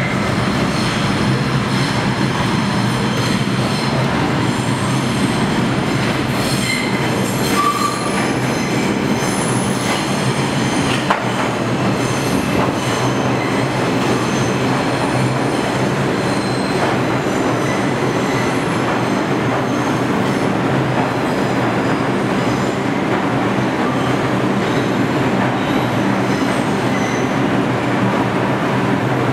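New York City subway train running into the station, with a steady rumble and the steel wheels squealing on and off against the rails. One sharp click comes about eleven seconds in.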